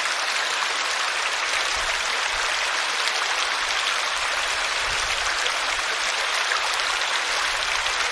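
Water flowing in a stream: a steady rush with small splashes and trickles over it.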